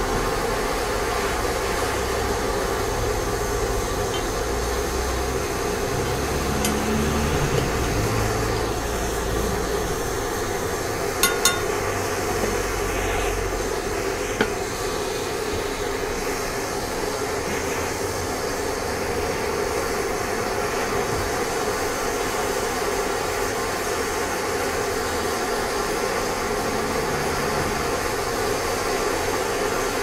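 Handheld propane torch burning with a steady rushing noise as its flame melts scrap metal in a steel bowl. A quick double metal clink comes about 11 seconds in, and a single clink about 14 seconds in.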